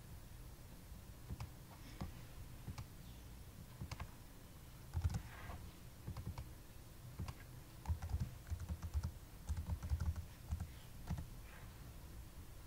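Computer keyboard being typed on, irregular keystrokes that come in short quick runs, thickest about five seconds in and again from about eight to ten and a half seconds.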